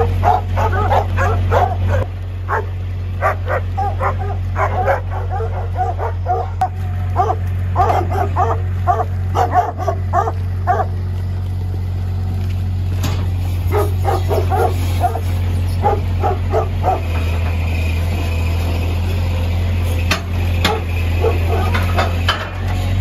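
Several dogs barking repeatedly in short bursts over the steady low running of a Ford 8N tractor's four-cylinder flathead engine.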